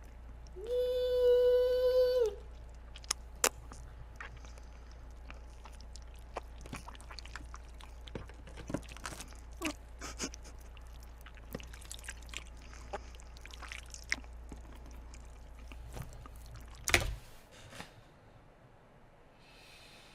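Mukbang eating sounds: a person chewing live octopus, with scattered short clicks and smacks of the mouth. Near the start there is a steady held tone, a little over a second and a half long, and about 17 s in there is one louder knock.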